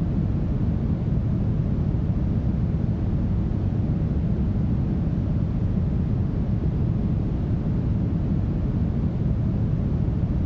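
Steady, smoothed brown noise: an even, deep rushing hiss, strongest in the bass, with little treble and no change.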